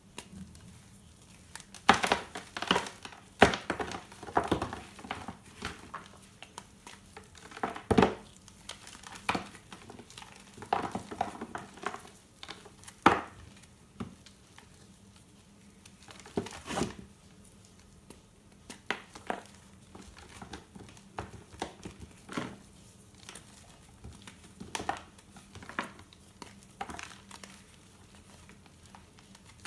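Reformed gym chalk blocks crunching and crumbling as they are squeezed and broken apart by hand into a plastic tub. Irregular crunches, loudest in the first half, then softer crumbling.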